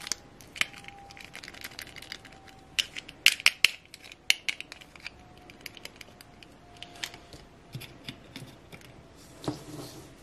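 Plastic handling noise: a string of small clicks and rustles as a clip-on plastic dress is worked off a miniature princess doll, then a soft knock near the end as the doll is set down on the tabletop.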